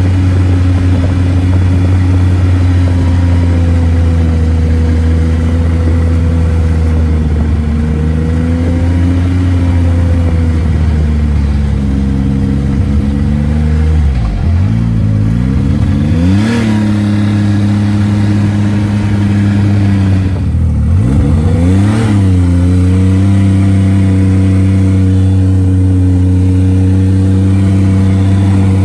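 Snowmobile engine running steadily under way. Twice, about halfway through and again a few seconds later, its pitch drops and climbs back as the sled slows and picks up speed again.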